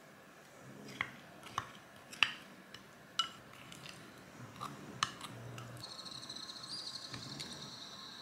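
Metal spoon clinking and scraping against a ceramic bowl of yogurt and frozen berries: half a dozen separate sharp clinks over the first five seconds. From about six seconds in, a steady high-pitched trill runs on.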